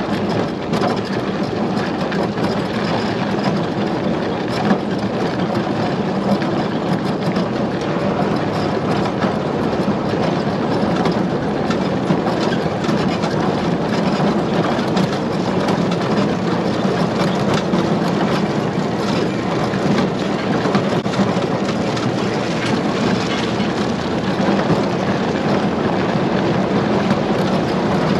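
Steady tractor engine running with the clatter and rattle of a towed ride over a rough gravel road.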